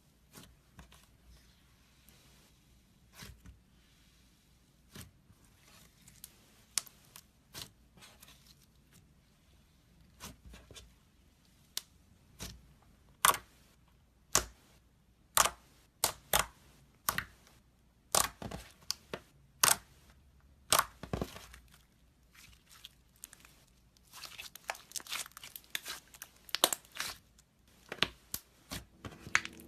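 Glitter slime being worked by hand, giving a string of short, sharp pops and crackles. They are sparse and faint at first, then louder and more frequent from about halfway, with a dense run of crackles near the end.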